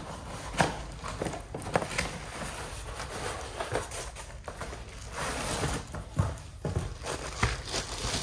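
A wall clock's cardboard box and its clear plastic wrapping being handled as the clock is taken out: scattered knocks and clicks, with a stretch of rustling crinkle about five seconds in.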